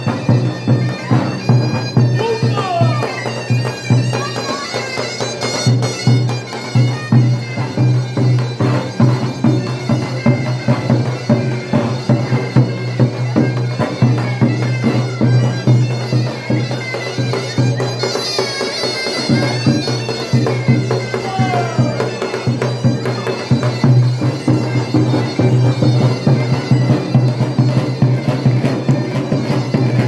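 Davul and zurna playing a horon dance tune: the zurna's reedy melody over the beat of the big double-headed drum.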